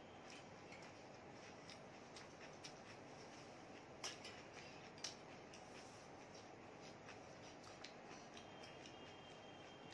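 Faint clinks and scrapes of metal spoons scooping food in a glass bowl, with two sharper clinks about four and five seconds in, over quiet room tone.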